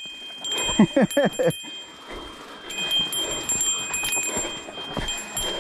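Mountain bike disc brakes squealing: a steady high-pitched ring that grows stronger about halfway in. The brakes are overheated, 'on fire' from braking on the descent.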